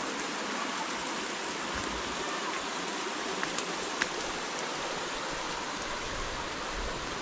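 Steady rushing of a flowing stream, with a few light clicks a little past halfway.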